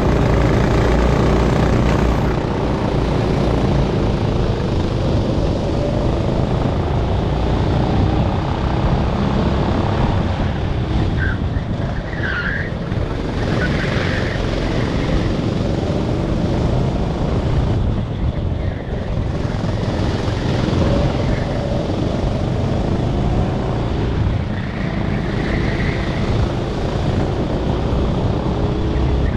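Onboard sound of a racing kart's engine running hard, revving up and falling back as it goes through the corners, with other karts' engines close around it. A few short squeals come midway and near the end, fitting tyres sliding in the corners.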